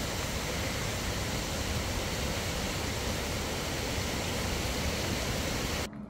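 Steady rushing water, an even hiss-and-rumble with no pitch to it, cutting off suddenly just before the end.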